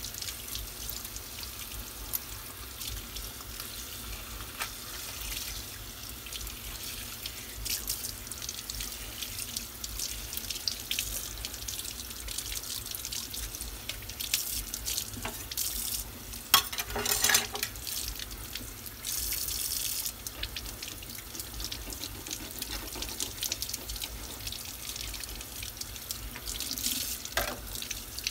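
Tap water running steadily into a sink and splashing over a whole striped bass as gloved hands rinse and turn it. The splashing gets louder twice, a little past halfway through.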